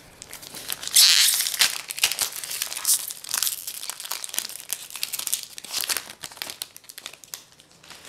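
Foil Magic: The Gathering booster-pack wrapper being torn open and crinkled by hand. It is loudest at a sharp tear about a second in, and the crinkling goes on for most of the rest.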